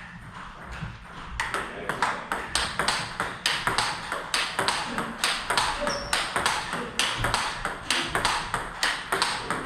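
Table tennis rally: the ball strikes the bats and the table in quick, regular alternation, about two to three crisp hits a second, starting about a second and a half in. Each stroke off the new test rubber gives a loud, sharp crack.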